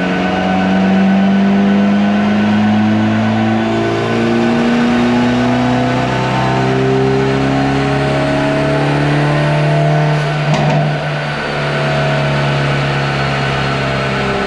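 Hyundai Veloster N 2.0 T-GDI turbocharged four-cylinder engine, fitted with an open intake, running under load on a chassis dynamometer in fourth gear. Its pitch climbs slowly, with a brief dip about ten seconds in before it carries on.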